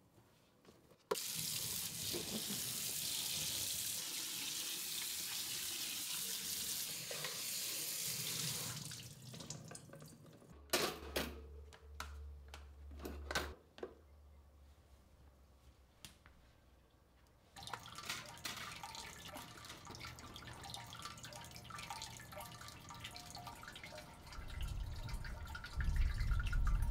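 Kitchen tap running into a stainless steel sink for about eight seconds while a plastic container part is rinsed. Then come a few sharp clicks and knocks of hard plastic being handled, and a low rumble near the end.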